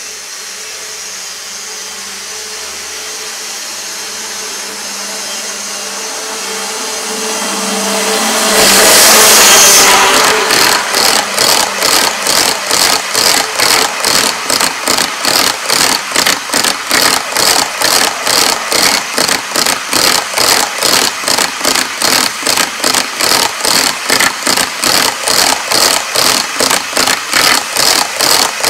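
HO scale model train running fast past close by: a hum that builds as it approaches, loudest about nine seconds in, then a steady rhythm of wheel clicks from the passing double-stack container cars, about three clicks a second.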